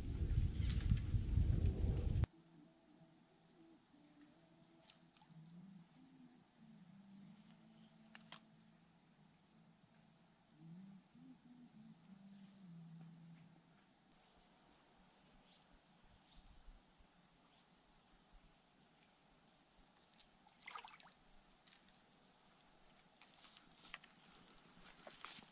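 Insects chirring in one steady, unbroken high-pitched drone. For the first two seconds a loud low rumble lies over it, then cuts off suddenly.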